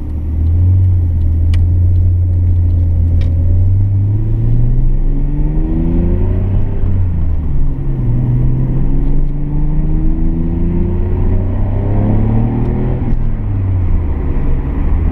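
Nissan Skyline R32 GT-R's twin-turbo inline-six pulling through the gears on a test drive: engine pitch climbs under acceleration, drops at a gear change about seven seconds in, climbs again and drops at another change near the end.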